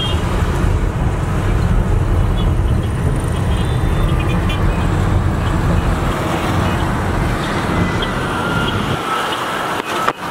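Busy road traffic: a steady din of car and minibus engines and tyres with a deep rumble underneath. The low rumble falls away about nine seconds in.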